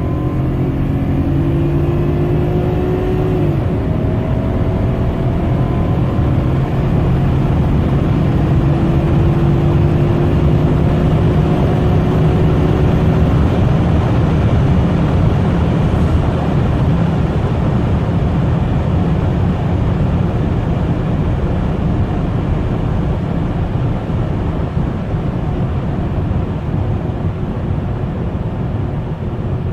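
BMW E32 7 Series engine accelerating hard. Its pitch climbs, drops at a gear change about three and a half seconds in, then climbs slowly again before fading into a steady rush of road and engine noise at speed.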